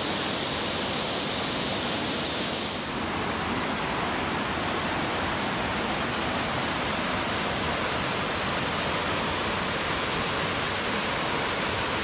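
Indian Creek Falls cascading down a sloping rock face into a wide pool: a steady rush of falling water. About three seconds in, the sound turns slightly duller, losing its highest hiss.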